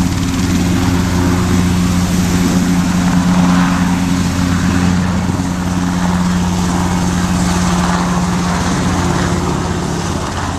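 KAI KUH-1 Surion twin-turboshaft utility helicopter flying low past: a steady drone of rotor and turbine engines, with a hum of several steady low tones under a broad rushing noise.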